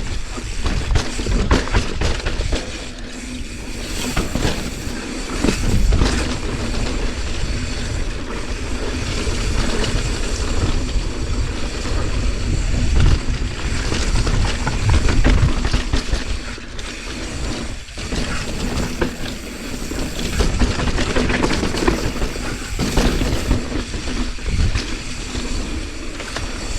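Mountain bike descending a rough, rocky trail: tyres crunching over dirt and stones, with constant rattling and knocking from the chain and frame, over a heavy rumble of wind on the microphone.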